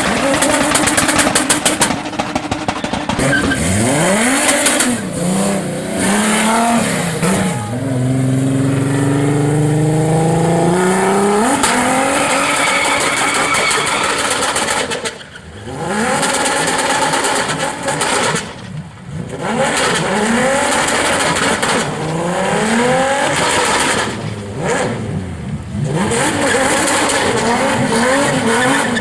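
Car engine revving hard, its pitch climbing and falling again and again as it accelerates and lets off, with short drops in level about halfway through.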